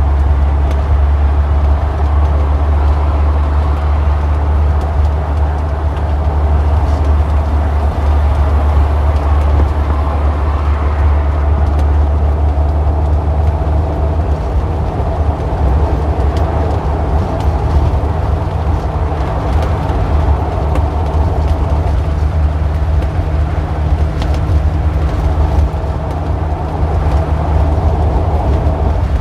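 Road traffic: a steady, loud low rumble of vehicle engines that holds at an even level throughout.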